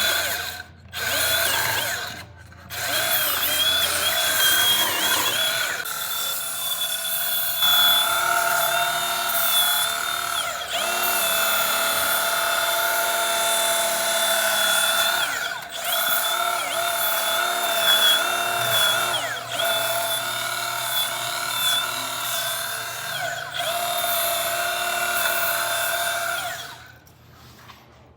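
Milwaukee 2531-20 cordless band file running with a steady motor whine, its sanding belt working on a steel axle shaft. It cuts out briefly twice near the start, the pitch sags several times as it is pressed into the work, and it shuts off near the end.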